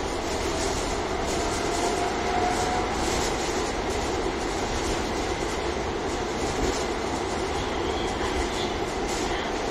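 A tram running along the track, heard from inside the passenger car: steady rolling noise of the wheels on the rails. A faint rising whine comes in the first couple of seconds, and a faint high squeal comes near the end.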